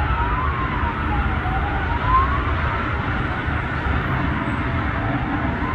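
Wailing emergency siren, its pitch slowly rising and falling over a few seconds, with two sweeping tones crossing each other, over a steady low rumble.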